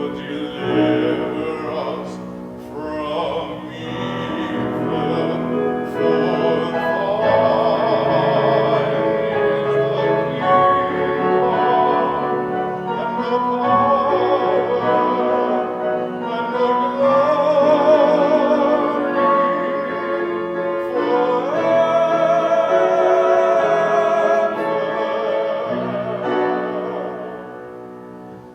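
A singer in a classical, operatic style, with wide vibrato, accompanied by piano. The music fades away near the end.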